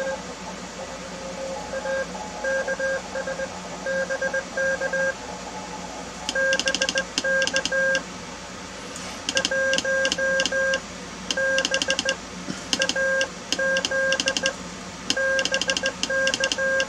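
Morse code (CW) sent by hand on a straight key: a single tone pulsing in dits and dahs. It is fainter for the first few seconds, then from about six seconds in louder, with a sharp click of the key contacts on each keyed element.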